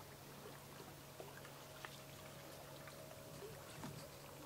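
Faint outdoor ambience: a low steady hum under soft, scattered small clicks and trickles.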